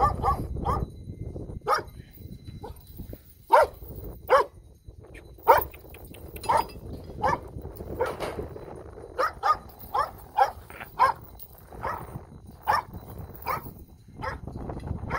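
A dog barking repeatedly with short single barks at irregular intervals, roughly one a second, some coming in quick pairs.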